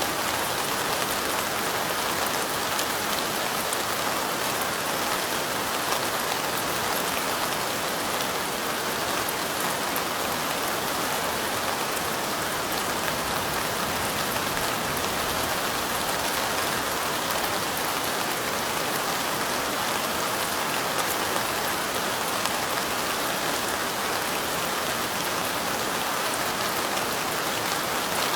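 Steady light rain falling, an even patter of many small drops.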